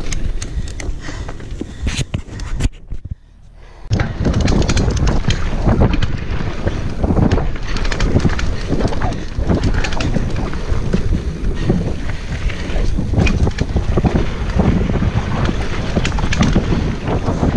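Wind buffeting the action camera's microphone while a Specialized Demo 8 downhill mountain bike rattles and clatters over a rough dirt trail at speed. The noise drops away briefly about three seconds in.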